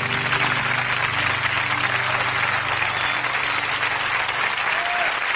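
Studio audience applauding, a dense steady clapping. The last held low note of the song fades out under it within the first couple of seconds.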